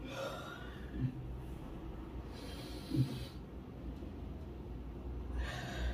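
A person taking long, deep breaths, three drawn-out breaths in and out, as instructed during a frozen-shoulder stretch. Two short low thumps fall about one and three seconds in.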